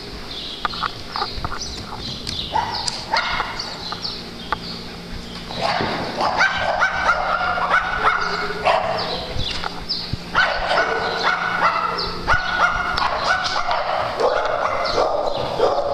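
Several dogs barking at play, short barks and yips, scattered at first and then fast, loud and overlapping from about six seconds in.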